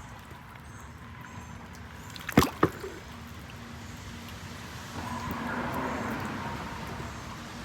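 Two sharp knocks about a quarter second apart, then about two seconds of water splashing as a released turtle goes back into the water.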